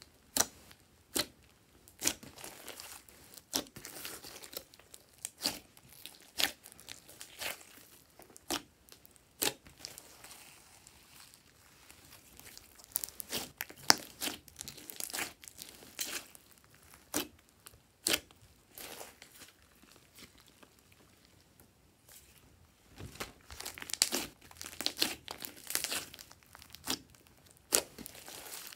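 Glossy slime squeezed and kneaded by hand, giving sharp sticky clicks and pops: about one a second at first, then thicker bursts of crackling as the slime is pressed and folded.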